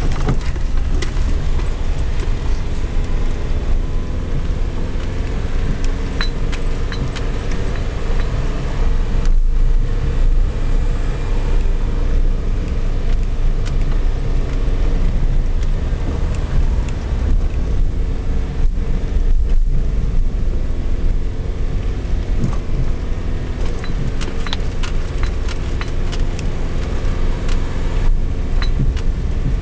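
Car driving, heard from inside the cabin: a steady low rumble of engine and tyres, with the engine note drifting up and down and scattered small clicks and rattles.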